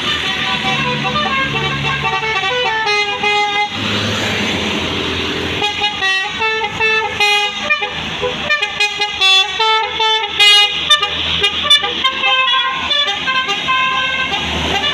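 A tour bus's 'telolet basuri' multi-note musical horn playing a tune, stepping between pitches: a few longer notes, then from about six seconds in a quick run of short notes.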